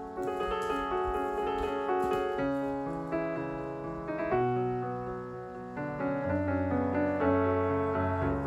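Background piano music: slow, gentle melody with sustained chords.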